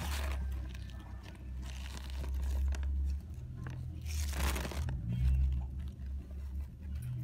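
Plastic chip bag crinkling and tortilla chips crunching as fingers dig into the bag, with a louder rustle about four seconds in, over a low handling rumble.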